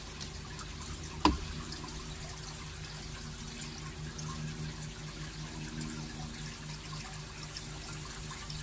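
Water trickling steadily over a low, steady hum, with a single sharp knock about a second in.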